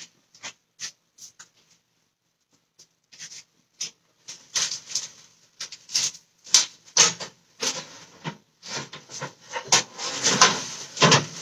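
Pans and baking trays knocking and clattering together as they are rummaged out of a kitchen cupboard: a few scattered knocks at first, then a busy run of clatter from about four seconds in.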